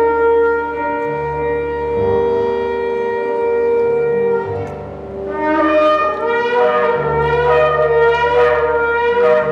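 Shofar sounded in long held blasts: one steady blast for the first four seconds or so, then, after a brief dip, another long blast with a wavering pitch.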